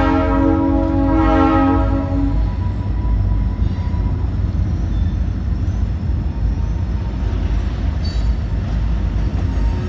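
Freight train's locomotive horn sounding a long multi-note chord that cuts off about two and a half seconds in, over the steady low rumble of the passing train.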